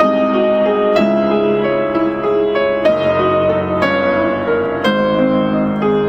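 Film score music led by piano, slow, with struck notes and chords sounding about once a second over held tones.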